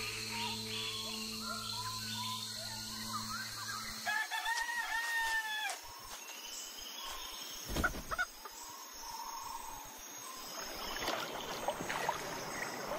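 A rooster crows once about four seconds in, a single drawn-out cock-a-doodle-doo, over a steady low hum. Near the end come the rough splashing sounds of a paddle in water.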